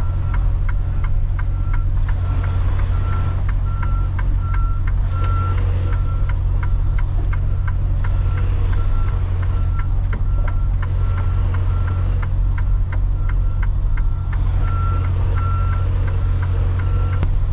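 A semi-truck's backup alarm beeps evenly and rapidly while the tractor reverses a trailer, over the steady low rumble of its diesel engine heard from inside the cab.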